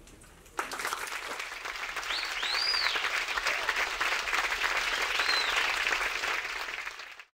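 Theatre audience applauding as the stage goes dark, starting suddenly about half a second in, with a few rising-and-falling whistles over the clapping; the applause cuts off abruptly near the end.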